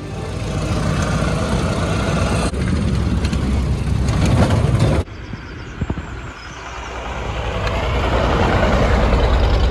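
1920 Ford Model T's four-cylinder engine running while the car drives, first heard from the driver's seat. The sound changes abruptly twice, then grows steadily louder from about six seconds in.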